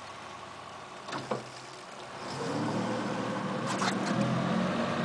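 Boat engine running at idle, growing louder about two seconds in, with two sharp knocks in the boat.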